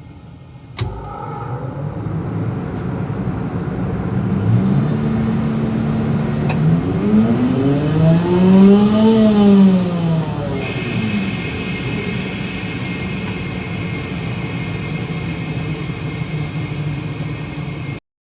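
Quincy QGV 50 rotary screw air compressor starting up with a sudden jump in sound, its variable-speed drive motor whining up in pitch and back down again over several seconds, then running steadily with a high hiss of air joining about ten seconds in.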